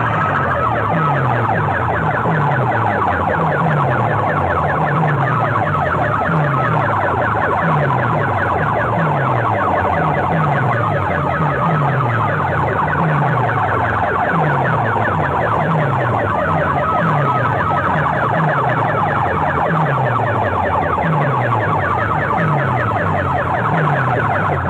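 Banks of PA horn loudspeakers and bass speaker boxes blasting a loud, distorted, siren-like electronic sound, with a low falling bass sweep repeating about once a second under a wavering high tone.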